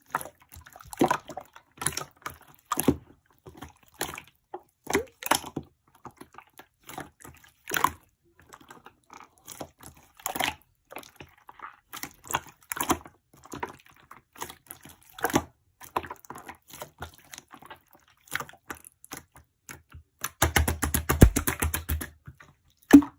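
Slime squeezed and poked by hand: separate wet clicks and pops at uneven gaps of about a second, then a fast run of crackling pops for a couple of seconds near the end.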